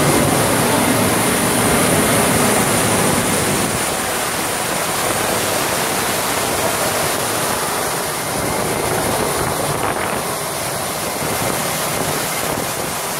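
Steady jet-aircraft noise from a parked Ilyushin Il-76 on the ice: a continuous rush with a thin high turbine whine, mixed with wind on the microphone. It eases a little after a few seconds.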